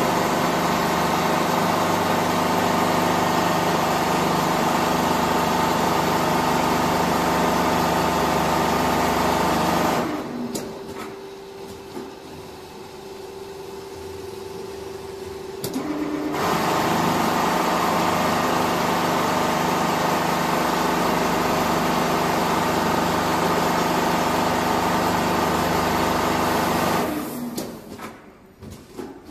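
Richpeace four-head CNC sewing machine running at stitching speed with a steady mechanical whirr. It stops about ten seconds in, leaving a lower hum, starts stitching again some six seconds later, and stops again near the end.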